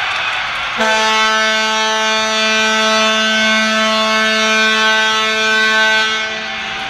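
Ice hockey arena horn sounding one long, steady blast of about five and a half seconds over crowd noise, starting suddenly about a second in and cutting off near the end.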